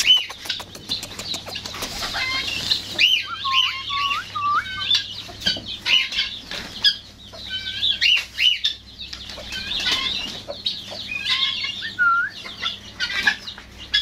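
A flock of backyard chickens clucking and calling over one another, many short curved calls overlapping throughout. Wings flap in the first couple of seconds.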